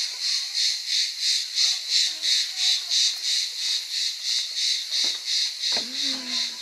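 Cicadas buzzing in a loud chorus that swells and fades about three times a second.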